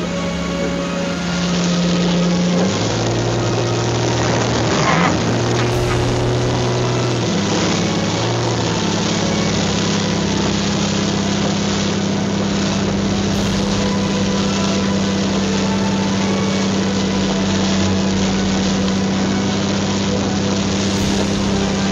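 Jeep Wrangler YJ engine droning steadily, heard from inside the cabin while it drives through floodwater, over a constant rushing noise of water and road. The drone steps up and down in pitch a few times in the first nine seconds, then holds one pitch.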